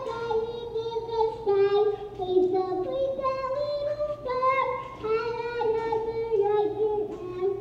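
A young girl singing a melody into a handheld microphone, holding each note and stepping from pitch to pitch.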